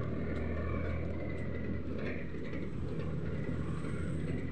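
Steady low drone of a vehicle in motion, engine and road noise heard from on board.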